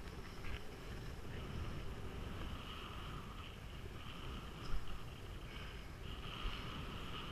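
Skis running over groomed snow, a steady scraping hiss of the bases and edges that swells in the second half, with wind buffeting the body-worn camera's microphone. A brief thump almost five seconds in.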